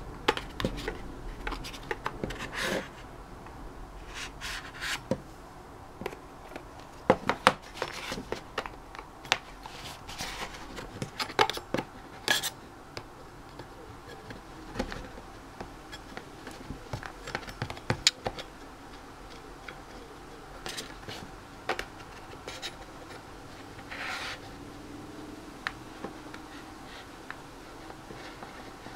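A small product box being worked open by hand: irregular clicks, scratches and rubbing of the packaging as it is pried at carefully, with quieter pauses between.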